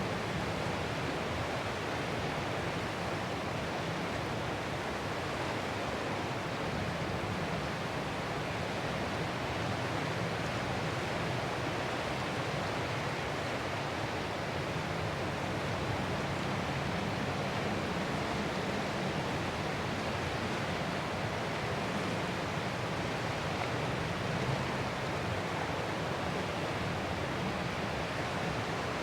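Ocean surf as a steady, even wash of noise, with no single breaking wave standing out.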